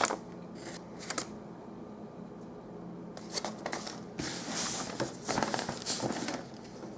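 Objects being handled and rummaged through: a few light clacks and knocks, then a couple of seconds of rustling.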